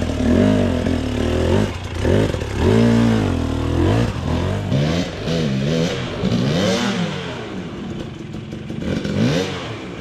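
Dirt bike engine revved in a string of short throttle blips, its pitch rising and falling again and again, fading somewhat near the end, as a rider works the bike through a rocky technical section.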